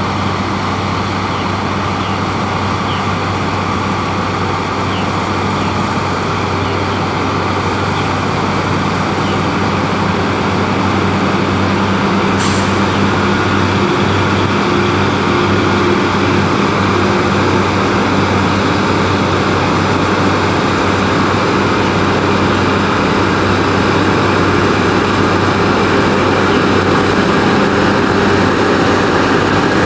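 Heavy diesel farm machinery running steadily under load, a constant engine drone over the clatter of working equipment, growing slowly louder; a single sharp click about twelve seconds in.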